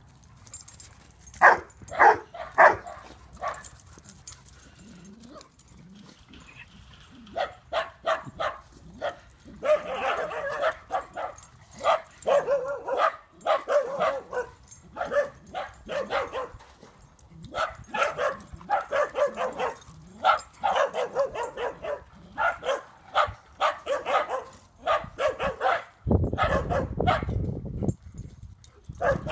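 Dogs barking and yipping while they play: a few loud single barks, then long runs of quick, excited yaps.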